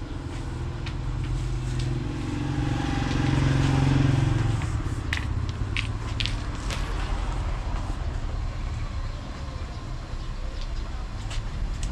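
A motor vehicle's engine running as a steady low rumble that grows louder around three to four seconds in, with scattered light clicks and knocks.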